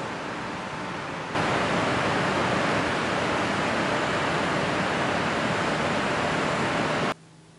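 Gravity-feed paint spray gun hissing steadily as it sprays a white base coat; the hiss jumps louder about a second and a half in and cuts off suddenly near the end.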